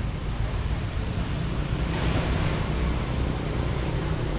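Street traffic noise: a steady low rumble, with a brief swell of hiss about two seconds in.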